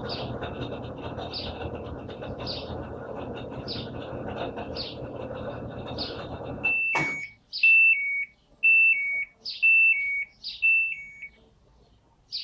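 Samsung Fuzzy Logic washing machine running, then cutting out with a click about halfway through and sounding five two-tone electronic beeps, about one a second: the machine halting on its 'dE' door error.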